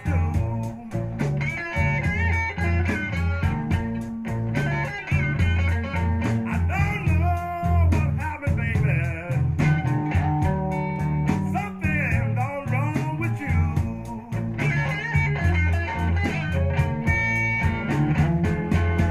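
Guitar-led blues-rock music with bass and a steady drum beat, played from a vinyl LP through a Sansui AU-555 amplifier and Design Acoustics PS-8c speakers.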